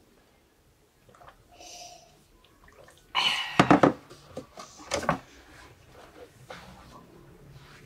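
A person shifting and getting up from a low table: a sudden burst of clothing and body rustle about three seconds in, with a few soft knocks, then quieter movement.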